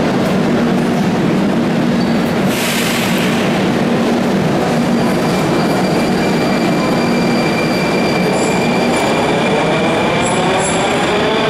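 Moscow metro train running at the platform, a loud steady rumble of the cars with a short hiss about two and a half seconds in. From about eight seconds a rising whine builds as the train accelerates, with brief high-pitched squeals.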